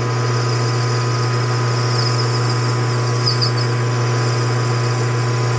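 Metal lathe running with a steady motor hum while a parting tool cuts into the spinning workpiece, giving a continuous high hiss of the cut.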